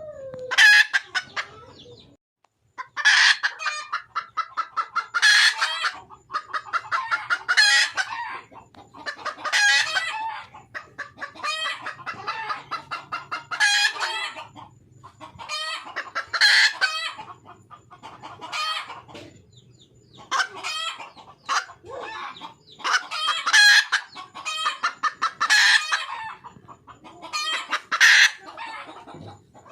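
Red junglefowl hen calling for a mate: bouts of rapid, pulsed cackling notes, one bout about every two seconds.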